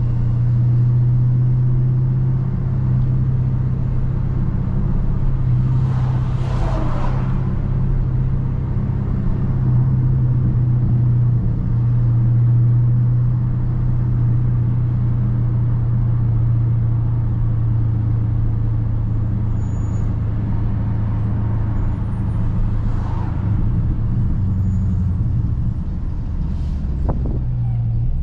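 2019 Dodge Charger Scat Pack's 6.4-litre HEMI V8 running at a steady low drone while cruising, with no hard revving. A couple of brief whooshes pass over it.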